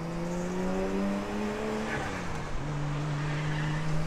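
Toyota Chaser drift car's engine and aftermarket exhaust heard from inside its stripped cabin while driving on track. The note climbs gently for about two seconds, drops, then holds steady at a lower pitch.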